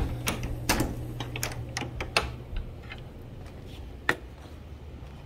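Scattered sharp clicks and taps, about a dozen of them at uneven intervals over the first three seconds, then one louder knock about four seconds in, over a low hum.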